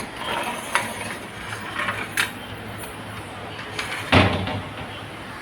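Sliding-door hanging-wheel hardware being handled and fitted: a few light metallic clicks, then one louder knock about four seconds in.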